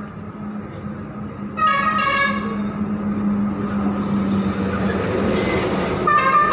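Street traffic: a vehicle horn honks twice, once about a second and a half in and again near the end, each honk under a second. Beneath it runs a steady low hum and a swelling rush of passing vehicles.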